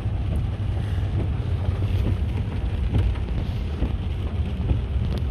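Steady low rumble of a car driving, with road and engine noise heard from inside the car and a few faint light ticks.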